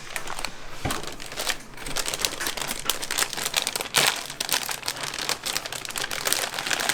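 Plastic packaging crinkling and crackling as a computer part is unwrapped by hand, a dense, irregular run of crackles with a louder burst about four seconds in.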